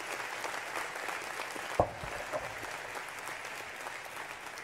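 An audience applauding in a large hall, gradually dying down. A single sharp thump about two seconds in stands out above the clapping.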